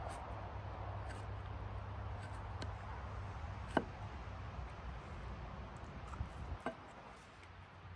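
A knife blade scraping and cutting small roots against a log, with a sharp click about four seconds in and a few lighter knocks around six and a half seconds, over a low steady rumble.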